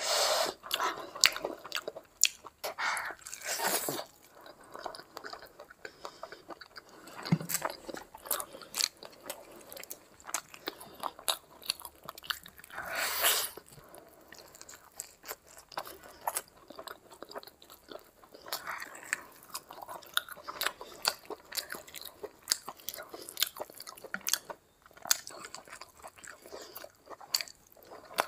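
Close-miked sounds of a person eating rice and curry by hand: wet chewing, biting and lip smacks, with scattered crunches and a louder burst about halfway through.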